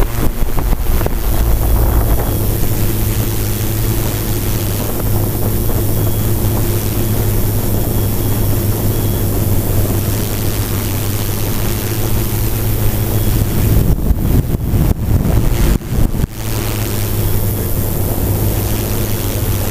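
FPV quadcopter's electric motors and propellers running at a steady pitch, heard close from the onboard camera, with wind rushing over the microphone. The sound cuts out briefly several times about three-quarters of the way through.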